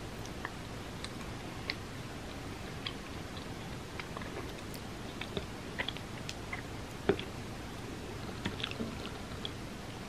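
Close-miked eating sounds: soft, wet chewing and mouth clicks from mochi ice cream and red bean porridge, scattered over a steady hiss, with one sharper click about seven seconds in.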